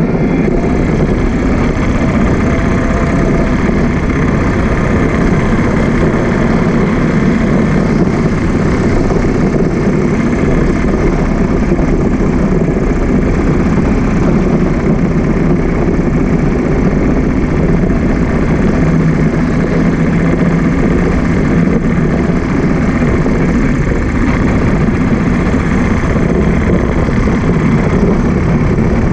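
Motorcycle engine running steadily on a slow ride, with a constant low hum of engine and road noise and no sharp events.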